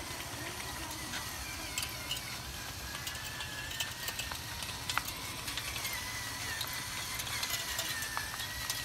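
Small electric gear motor of a homemade RC truck running with a thin, slightly wavering high whine, with scattered clicks and rattles from the drivetrain.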